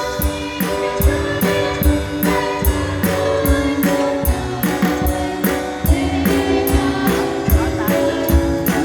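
Christian worship song: singing over a band with a steady drum beat and sustained held notes.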